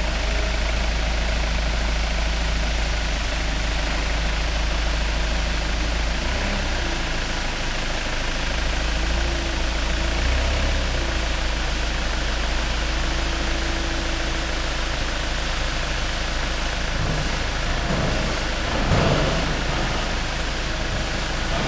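Clark 3-ton forklift engine running steadily while its hydraulics raise and turn the ingot clamp, with a faint steady whine from about nine to fourteen seconds in. There is a brief louder noise near the end.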